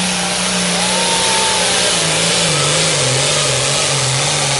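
Pulling tractor's diesel engine running hard under full load as it drags a weight-transfer sled. The engine note drops lower and wavers about two seconds in.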